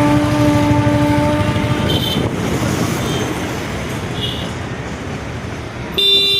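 Train running with a steady rumble. A horn sounds for about the first two seconds, and a short, higher horn toot comes in suddenly near the end.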